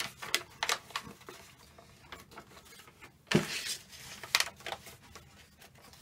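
A sheet of origami paper being folded and creased by hand: scattered crisp rustles and crinkles, with a louder rustle and a thump a little past three seconds in.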